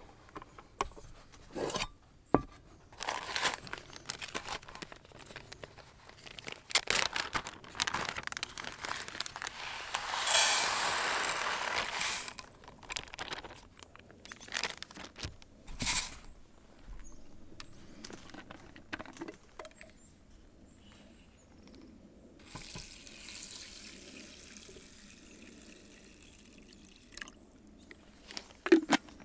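Water poured for about two seconds, amid scattered clicks and knocks of camp gear being handled.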